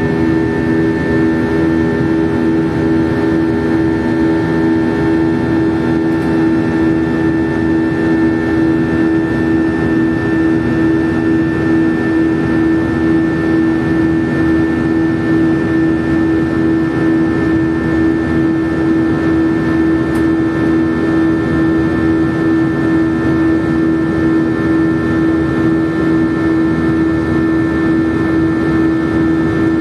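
Airliner cabin noise in flight: the turbofan jet engines running steadily, a loud, even drone with a constant low hum and fainter higher tones over a rushing background.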